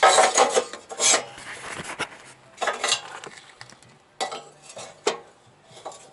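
Metal clinking and scraping from handling an RV furnace's steel burner tube and working a screwdriver on the igniter's retaining screw. A run of short clinks and scrapes, loudest in the first second, then sparser and fainter.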